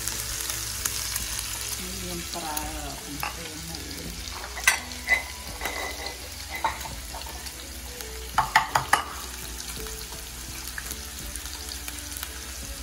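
Sliced meat sizzling steadily in oil in a nonstick frying pan on a gas burner. Over it come a few sharp clinks of ceramic bowls and dishes, with a quick cluster of four taps just past the middle.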